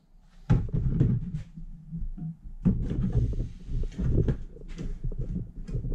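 Plastic-cased Greenworks 80 V battery packs being handled and pushed into a homemade battery box: an irregular string of knocks, thuds and scrapes starting about half a second in.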